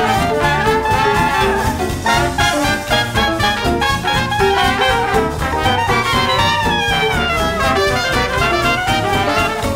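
Background music: up-tempo jazz with brass over a steady beat.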